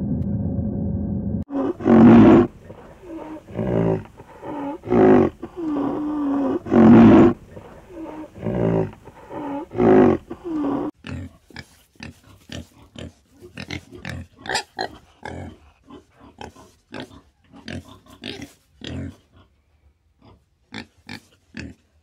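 Pigs grunting and squealing: loud, wavering calls for the first half, then a run of many short, quick grunts and snorts. Before them, a steady hum cuts off about a second and a half in.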